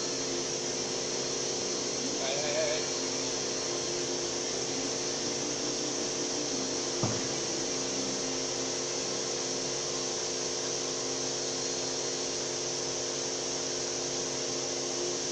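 Steady mechanical hum with several fixed tones and a high hiss. A brief wavering high sound comes about two and a half seconds in, and a single knock about seven seconds in.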